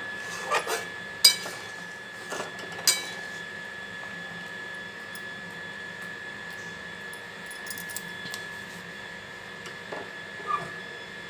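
A metal spatula clinking and scraping against a metal kadai while stirring a thick curry: a few sharp clinks in the first three seconds, then fainter knocks later, over a steady hiss.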